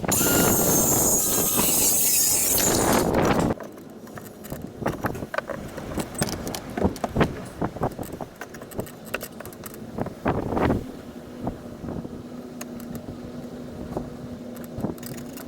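Power tool running loudly and cutting off sharply about three and a half seconds in, followed by scattered knocks and clicks of wood and parts being handled.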